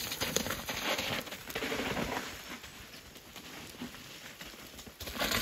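Mountain bike tyres sliding and crunching over wet dirt and fallen leaves on a steep descent, with scattered clicks and rattles. The sound is louder for the first couple of seconds, then fades.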